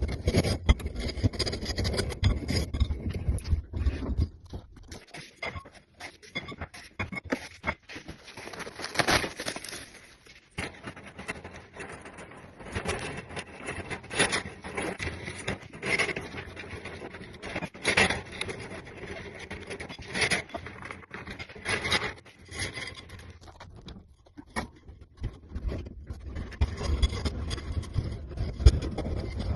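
Irregular scraping, rubbing and knocking of hand work on the furnace during the heating-element replacement, with a run of scrapes about every two seconds in the middle and a low rumble near the start and end.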